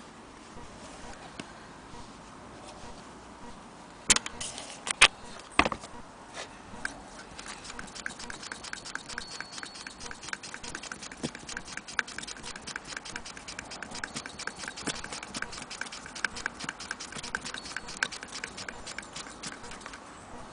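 Antique Willcox & Gibbs sewing machine stitching fabric, its mechanism clicking in an even rhythm of about four to five clicks a second. A few sharp knocks come first, from the machine being handled as the fabric is set in place.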